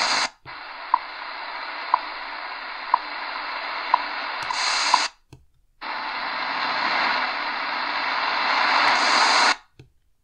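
Eton Grundig G5 shortwave radio's speaker giving off steady static hiss as it scans up the band around 5 MHz. For the first few seconds the once-a-second ticks of the WWV time signal come through the noise, five in all. The sound cuts out briefly twice as the scan steps to new frequencies.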